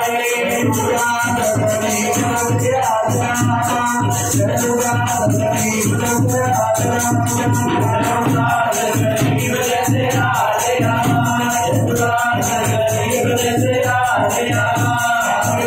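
A man singing a devotional bhajan into a microphone over a PA, accompanied by a shaken rattle-like percussion that keeps a steady beat.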